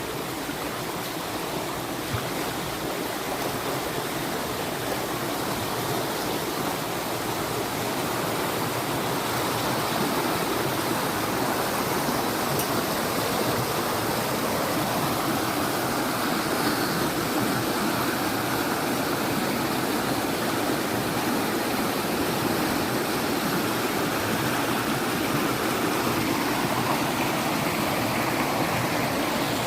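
Fast-flowing water rushing steadily, a continuous even roar of a stream or rapids.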